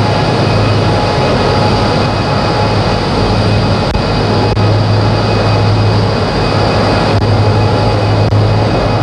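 Olive oil mill machinery running during cold extraction: a loud, steady mechanical drone with a strong low hum and a few faint steady high tones.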